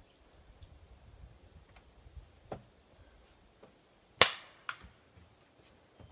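Paintball pistol shots: one sharp, loud pop about four seconds in, then a quieter second pop half a second later.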